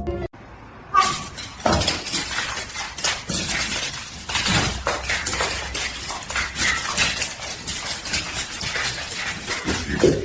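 A dense, irregular run of clattering and clinking knocks from hard objects, starting about a second in.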